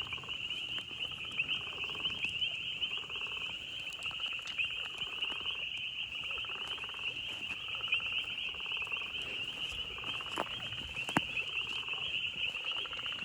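Frog chorus: a steady high-pitched trill with lower pulsed calls repeating about once a second. A single sharp click comes near the end.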